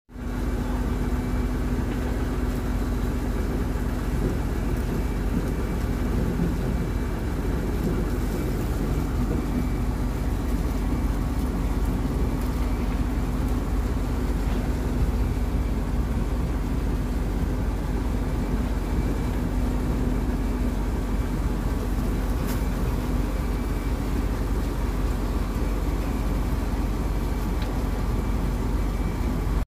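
Heavy diesel earthmoving machinery running steadily, an even engine drone with a steady low hum, heard from inside an excavator cab.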